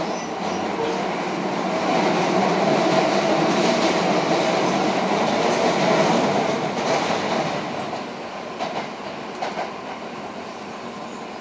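Electric commuter train running at speed, heard from inside the car at an open side window: steady rumble of wheels on rail that swells for a few seconds and then eases, with a few sharp rail-joint clicks near the end.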